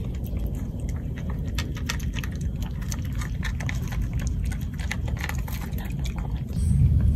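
Cat eating wet food at close range: a quick, irregular run of small wet chewing and smacking clicks. A steady low rumble lies underneath and grows louder near the end.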